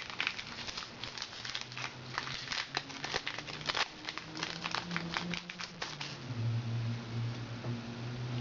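Foil Yu-Gi-Oh booster pack wrapper crinkling and crackling in a rapid run of small irregular crackles as the pack is handled and opened. A faint low hum sits underneath and grows stronger in the last couple of seconds.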